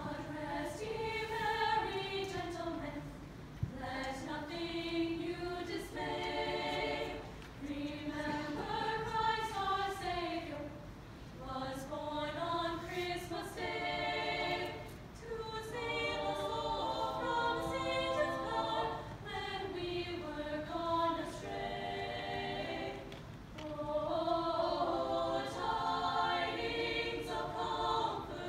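Women's a cappella group singing a Christmas carol in several-part harmony, unaccompanied, in phrases with short breaks for breath between them.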